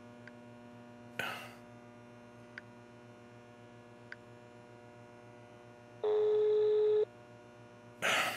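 Telephone ringback tone from an outgoing call: one steady beep lasting about a second, starting about six seconds in, over a constant low electrical hum. A few faint ticks and a short burst of noise about a second in come before it, and another burst of noise near the end.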